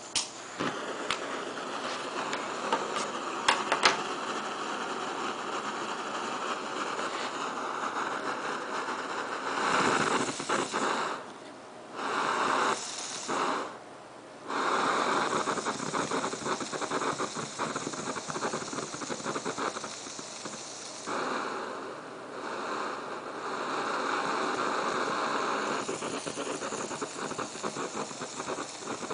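Butane gas hissing and burning at the burner of a Primus Express camping stove fed from a cheap butane canister, the flame unstable and flaring tall and yellow. A few sharp clicks come in the first four seconds as it is lit, and the hiss drops out twice for about a second near the middle.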